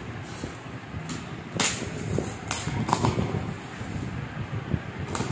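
Packing tape and plastic wrap being peeled and torn off a cardboard parcel: crinkling with a few sharp rips, the loudest about one and a half seconds in.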